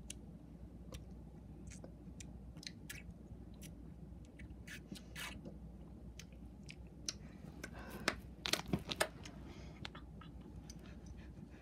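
Close-up mouth sounds of eating: scattered crunches and wet clicks of chewing, with a busier run of louder crunches about eight to nine seconds in.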